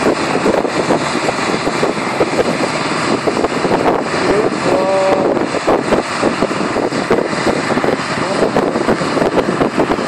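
Combine harvester running at work while harvesting grain: a loud, steady engine-and-machinery noise with fast, irregular rattling from the cutting and threshing gear.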